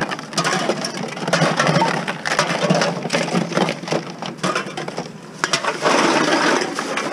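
Empty beverage bottles and cans clattering and crunching against each other as they are gathered by hand out of a bin: a dense, continuous run of knocks and rattles.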